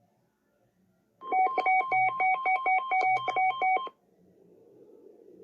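Emergency alert tone: rapid electronic beeps alternating between a lower and a higher pitch, about five a second, starting about a second in and stopping after under three seconds. A faint hiss rises near the end.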